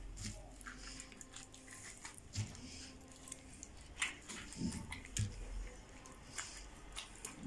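Wet squishing and crackling of fingers packing a rice-and-tomato stuffing through a funnel into a beef-intestine casing (mumbar), with scattered small clicks and a few soft knocks.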